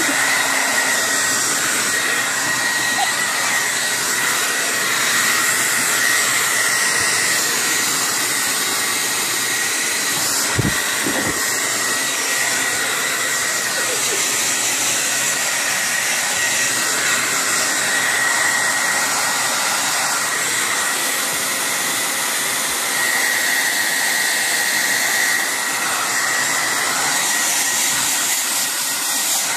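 Hair dryer running steadily: an even rushing noise with a constant high whine, and a brief low bump about ten seconds in.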